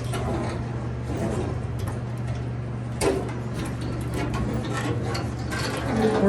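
Hem Pro hand hemming tool being worked along a sheet-metal edge: scattered metallic clicks and scrapes, with one louder clack about three seconds in, over a steady low hum.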